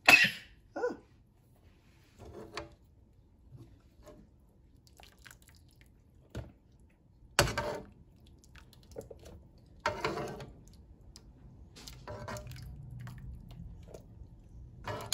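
Sweet potato leaves being blanched in a pot of hot water and handled with metal tongs: water splashing and bubbling, with a few sharp knocks and clinks of the tongs against the pot, the loudest about seven seconds in. A short sharp burst of noise comes right at the start.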